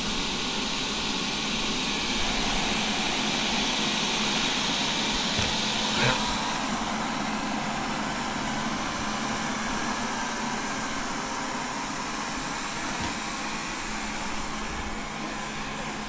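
Xiaomi STYTJ02YM robot vacuum-mop running on carpet: a steady whir of its suction fan and brushes with a low hum, the higher hiss easing off about six seconds in as it moves away, and a small click about six seconds in.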